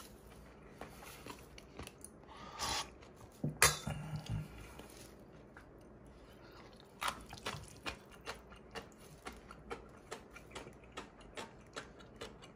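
Close-up eating sounds: a sharp clack about three and a half seconds in, then steady crunchy chewing of pickled radish (danmuji), about two crunches a second.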